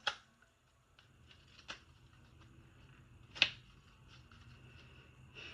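A new deck of oracle cards handled and worked apart, its stiff cards sticking together: a few sharp card snaps, one right at the start, one near two seconds in and the loudest about three and a half seconds in.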